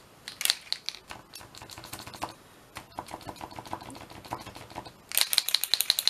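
Posca paint marker being shaken, its mixing ball rattling inside the barrel in quick clicks, which grow fastest and loudest about five seconds in.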